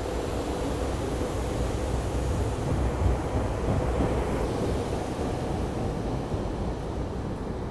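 SEPTA Silverliner IV electric multiple-unit train rolling past a station platform: a steady rumble of wheels on rails that thins slightly near the end as the last cars go by.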